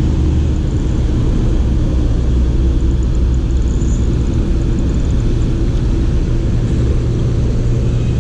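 Steady low engine rumble with a deep, even hum.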